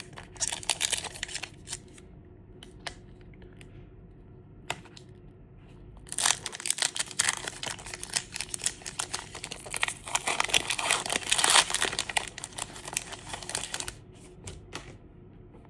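Foil wrapper of a Pokémon TCG Stellar Crown booster pack being torn open and crinkled. A short burst of crinkling near the start and a couple of single clicks are followed, about six seconds in, by some eight seconds of dense crinkling and tearing.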